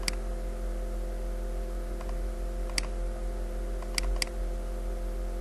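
Four sharp computer mouse clicks: one at the start, one near the middle, and a quick double-click about four seconds in, over a steady electrical hum.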